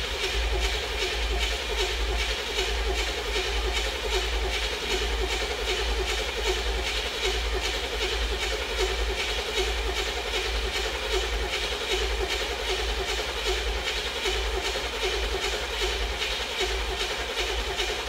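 Starter motor cranking a truck engine in an even, steady rhythm without it firing, since the distributor is disconnected. The cranking is meant to build oil pressure after long standing and to pull fuel up to the fuel filter.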